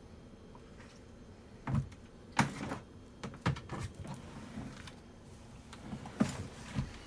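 A series of knocks, clicks and thumps, the loudest a little over two seconds in, followed by a run of lighter clicks and another knock near the end.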